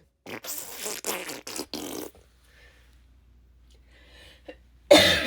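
A sputtering fart noise lasting about two seconds, followed near the end by a short, loud cough.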